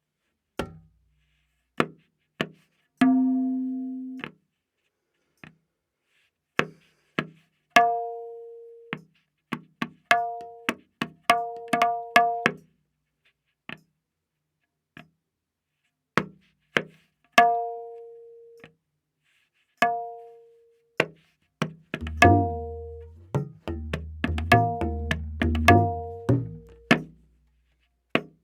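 Tabla playing a slow vilambit ektaal theka, the dayan tuned to A#: widely spaced single strokes, some dry and some ringing on with a clear pitch. In the last quarter the strokes come thicker, over deep, booming bayan strokes.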